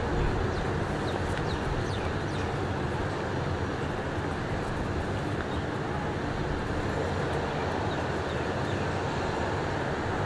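Steady drone of an Airbus A400M's four turboprop engines and propellers on a low landing approach, with a low hum under an even rushing noise.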